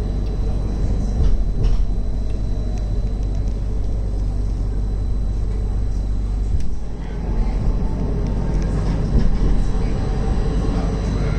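Edinburgh tram running on street track, heard from inside the passenger car: a steady low rumble from the running gear, with a brief dip in loudness about seven seconds in.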